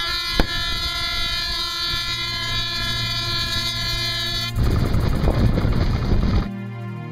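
A long, steady horn blast lasting about four and a half seconds, followed by about two seconds of loud rushing noise.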